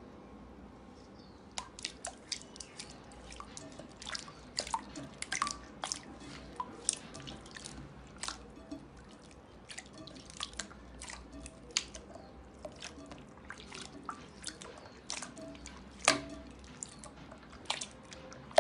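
Clear glittery slime being pressed and kneaded by hand in a bowl, giving irregular wet clicks and pops, several a second. The clicks start about a second and a half in.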